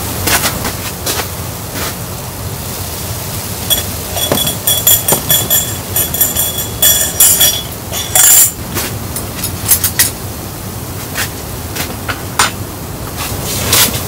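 Glass teapot and tableware knocking and clinking, some strikes ringing with a clear high tone, in a busy run from about four to eight seconds in as tea is poured into a mug. Underneath, a steady rushing hiss of the snowstorm against the tent.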